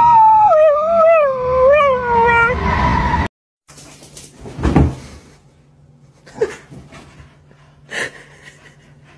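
A dog howling along with a siren, its wavering howl bending up and down, until it cuts off a little over three seconds in. Then, much quieter, a few short snorts and rustles from a small dog wriggling on its back on a sofa.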